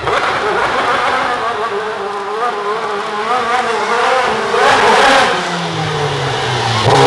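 Racing car engine revving, its pitch wavering up and down as the car spins donuts in tyre smoke. About five and a half seconds in, a deeper, steady engine note joins.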